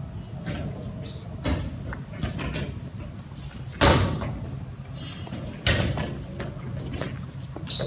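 Inflated balloons being tapped upward with badminton racquets: four scattered knocks, the loudest about four seconds in, each trailing off in the echo of a large hall, over a steady low hum.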